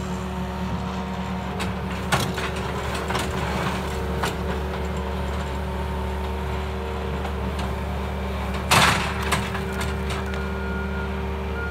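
Bobcat S630 skid-steer loader's diesel engine running steadily while its pallet forks scrape and break up corral ice, with scattered sharp cracks and knocks. A louder crunching burst comes about nine seconds in.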